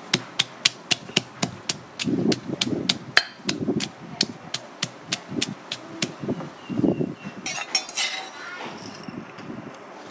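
Stone pestle pounding stalks in a granite mortar: sharp, even knocks at about four a second that stop about six seconds in. A few clinks follow near the end.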